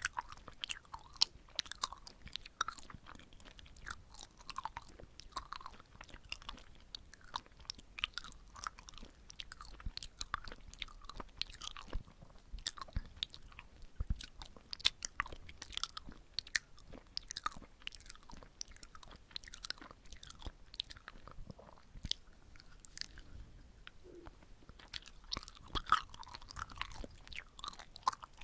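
Close-up chewing of soft, sticky red bean rice cake (chapssaltteok), with wet, sticky mouth clicks and smacks coming irregularly.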